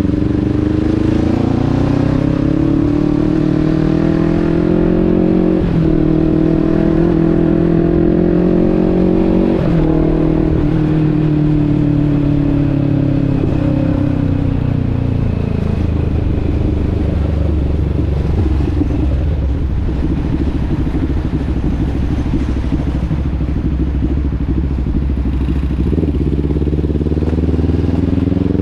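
Motorcycle engine under way, rising in pitch through the gears with a shift about six seconds in and another about ten seconds in. It then slows gradually into a low rumble and picks up again near the end.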